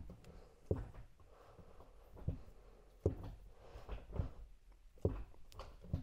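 About six short, quiet knocks and clicks, spread a second or so apart, from the MGB gear lever being moved through the gears by hand with its greased rubber gaiter.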